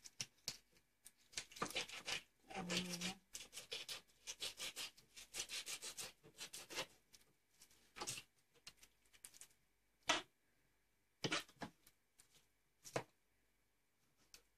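A kitchen knife scraping and slicing through a small fish on a plastic cutting board, in quick rasping strokes for the first several seconds, then a few single sharp clicks or knocks.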